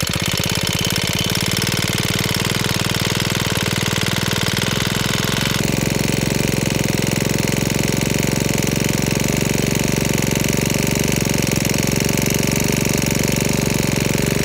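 Honda 25 cc four-stroke (OHC) strimmer engine running steadily on its own, having just caught from a primed cold start. Its note shifts slightly about six seconds in, then holds even.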